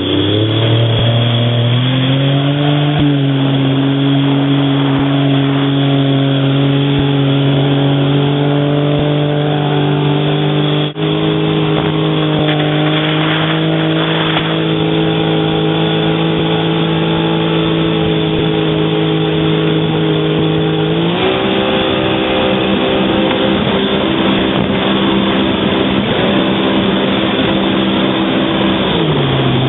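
Jet ski engine speeding up, then running steadily at high revs. Its pitch steps up about two-thirds of the way through, then dips and rises again near the end.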